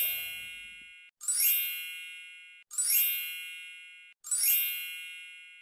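A bright, sparkly chime sound effect sounding four times, about a second and a half apart, each ringing out and fading away over about a second.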